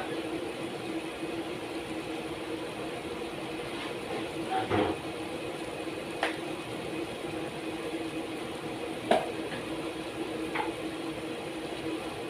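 A steady machine hum with a few short clicks and knocks, the sharpest about nine seconds in.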